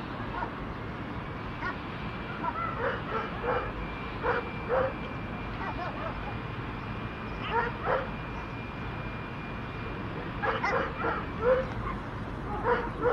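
Stray dogs barking and yipping in short, scattered bursts of a few barks each, with pauses of a second or more between the bursts.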